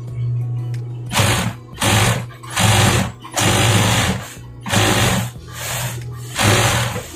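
Jack industrial sewing machine stitching in about seven short runs, each lasting half a second to a second, as fabric is fed through in a test seam, with a steady motor hum between the runs.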